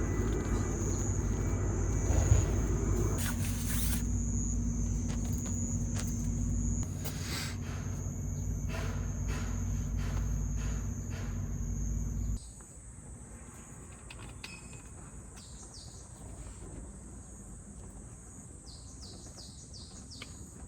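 Steady high-pitched drone of summer insects over a low rumble; the rumble stops abruptly about twelve seconds in, leaving the insect drone and a few short chirps.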